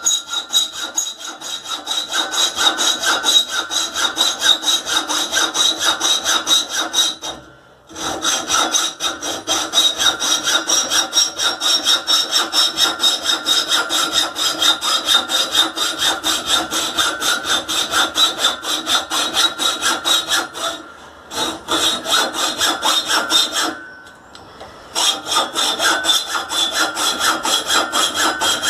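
Hacksaw cutting a metal pipe by hand, in steady back-and-forth strokes with a ringing metallic tone. The sawing stops briefly about a quarter of the way in, and twice more in the last third.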